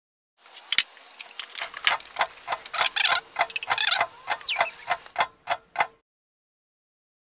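Metal spoon stirring flour and dough in a mixing bowl, clicking and scraping against the bowl's side about three times a second, with one brief falling squeak near the middle. It starts about half a second in and cuts off suddenly about six seconds in.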